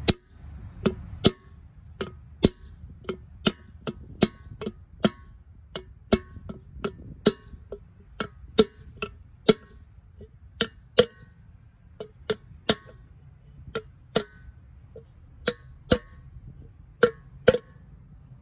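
Hammer tapping a steel disc laid over a new wheel seal, driving the seal into a truck wheel hub: sharp metallic taps with a short ring, about two a second, some harder than others.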